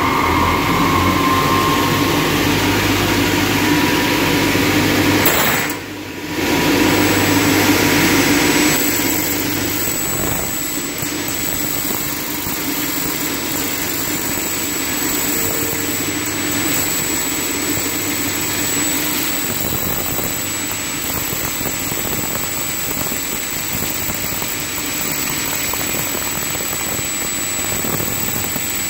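Cut-off saw for roller-shutter boxes and slats running and sawing through a short bent sheet-metal box profile, a steady loud machine noise that dips briefly about six seconds in.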